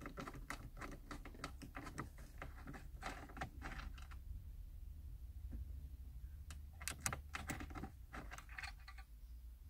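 Faint irregular clicking of a Phillips screwdriver turning out a radio mounting screw in a car dashboard: small plastic-and-metal ticks, quick and many for the first few seconds, then scattered.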